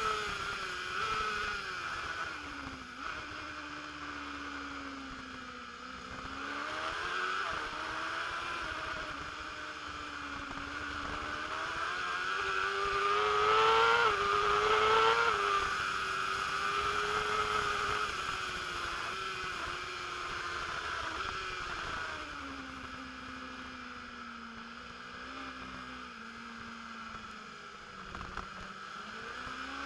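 A racing motorcycle's engine under full race load, heard from a camera mounted on the bike. It revs up through the gears to its loudest about halfway through, then drops in pitch as the bike slows for a corner, and starts to climb again just at the end.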